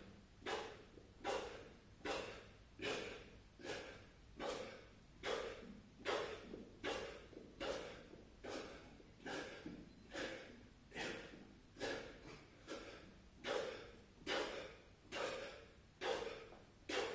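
A man breathing hard and rhythmically through a set of push-ups, with about five sharp, forceful breaths every four seconds.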